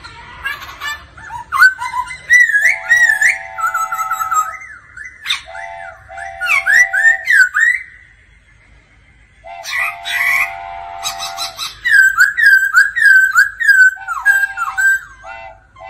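Black-throated laughingthrush singing a loud, varied song of clear whistled notes that slide up and down, quick runs of short notes and short level held notes. There is a pause of about a second and a half just past the middle.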